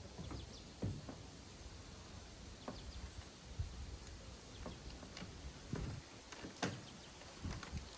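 Irregular light clicks and knocks of small bolts and wing nuts being handled while a solar panel is fastened to its mounting bracket.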